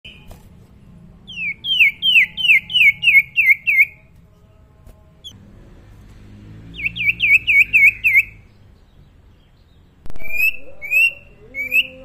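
Young common iora (cipoh, sirtu) singing: two runs of rapid down-slurred whistles, several a second, then three short rising whistles near the end. A lower droning noise comes in sharply about ten seconds in.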